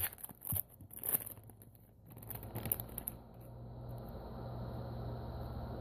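A trading-card pack wrapper being handled and torn open: a few faint crinkles and clicks in the first three seconds, then only a low steady hum.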